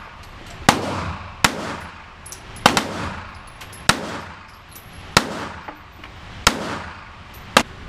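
Gunshots fired one at a time at a shooting range: seven single shots roughly a second or so apart, each a sharp crack followed by a short ring-out.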